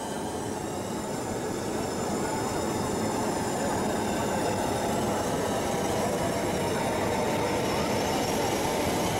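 Steady rushing noise of the balloon's burning fuel wicks (buchas) as they are lit one after another, growing slowly louder.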